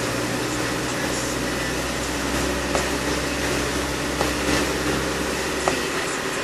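Car driving through deep floodwater, heard from inside the cabin: a steady rush of water spraying against the windscreen and bodywork over a low engine hum, with a few sharp splash ticks. The hum drops away near the end as the car clears the water.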